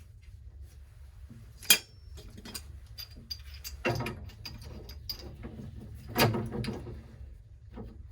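Hand tools clicking and clanking on metal gas fittings. There is a sharp click about a second and a half in, and heavier clanks with a brief ring around four and six seconds in.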